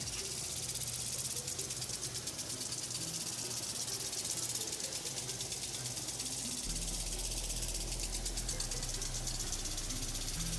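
Lawn sprinklers spraying: a steady high hiss of water with fast, even ticking. A low hum joins about seven seconds in.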